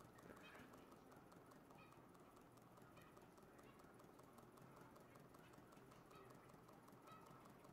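Homemade double-acting oscillating (wobbler) engine running slowly, heard faintly as an even rhythm of soft clicks and clops.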